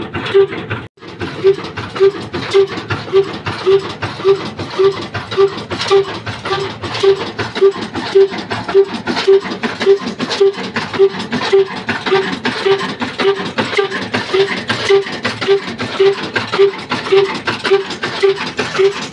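Old slow-speed stationary diesel engine (a desi "black engine" with heavy flywheels) running steadily at about 275 rpm. It gives an even beat about twice a second, with sharp mechanical clicks and clatter between the beats. The sound drops out for an instant about a second in.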